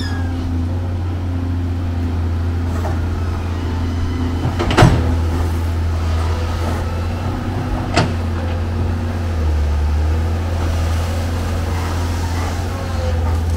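Amphibious excavator's diesel engine running steadily with a low drone, with two sharp knocks about three seconds apart.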